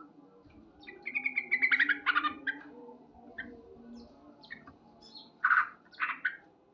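Male sooty-headed bulbul (trucukan) calling: a fast run of chattering notes about a second in, then a few short, loud calls near the end.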